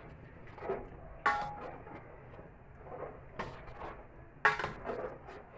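A long spoon stirring thick rice porridge in a large aluminium pot, scraping and knocking against the pot's side. There are a few sharp clanks with a brief ring, the loudest near the end.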